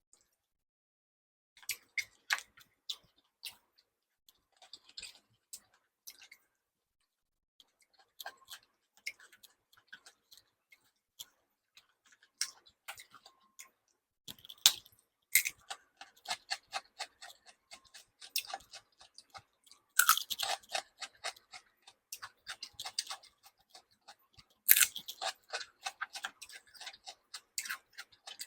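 A person chewing and biting food, with irregular wet clicks and crunches. There are louder bursts of biting about 20 and 25 seconds in.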